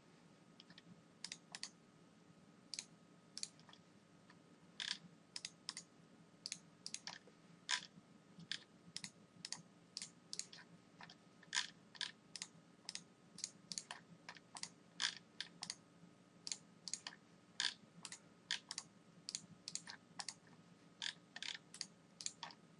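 Computer mouse clicking, short sharp clicks at an uneven pace of about two a second, some in quick pairs, as points are picked on screen, over a faint steady hum.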